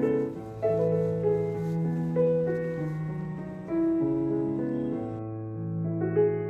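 Background piano music: a melody of held notes over chords that change every second or so.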